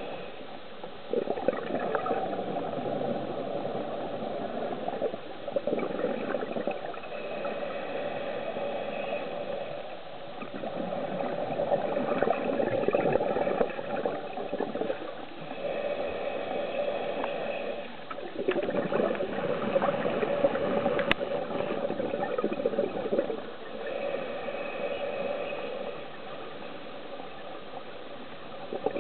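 Scuba regulator exhaust bubbles from a diver's breathing, heard underwater through a camera's underwater housing: gurgling bursts of bubbles lasting a few seconds each, with quieter stretches between breaths.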